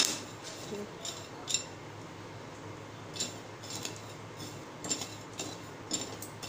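Steel spoon slowly stirring black chickpeas through hot salt in a steel kadhai: irregular clinks and short scrapes of metal and grit against the pan, a few every second or so.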